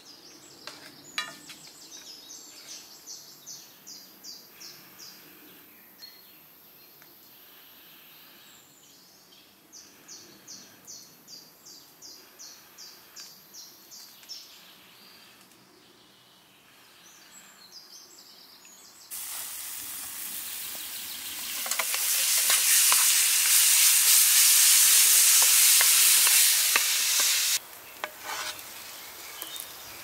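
Wooden spatula stirring a chunky red sauce in a frying pan over a wood fire, scraping in quick strokes about three a second, in two spells. About two-thirds of the way through, loud frying sizzle starts suddenly, grows louder, then cuts off sharply near the end.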